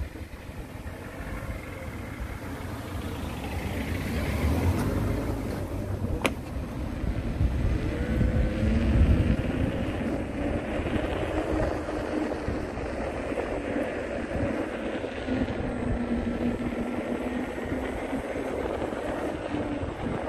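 Outdoor vehicle and street noise with wind rumbling on the microphone while moving. A faint whine rises about eight seconds in and then holds steady.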